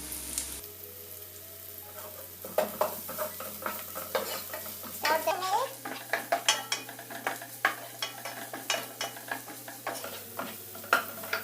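Chopped onion, garlic, green chillies and curry leaves sizzling in hot oil as ginger garlic paste is stirred in. A spoon scrapes and clicks against the pan many times throughout.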